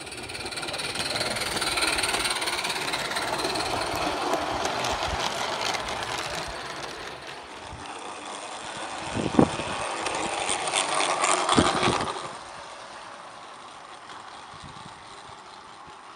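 Garden-scale model train running along its track: a steady rolling rumble that swells as it comes close and then fades. After a cut, the wheels run again, with a couple of sharp clicks, before dropping away near the end.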